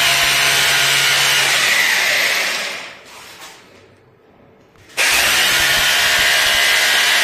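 Electric hammer drill with a 6 mm bit boring into a masonry wall for wall plugs. It makes two bursts: the first runs for nearly three seconds and winds down, and the second starts about five seconds in.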